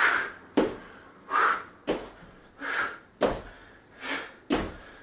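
Jump squats with 180-degree turns: a forceful exhale on each jump, then a thud of feet landing on a mat over a wooden floor about half a second later, repeating about every 1.3 seconds, four times over.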